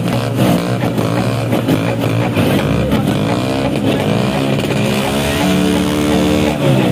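Vespa scooter engines revving, their pitch rising and falling again and again with throttle blips over a steady running note.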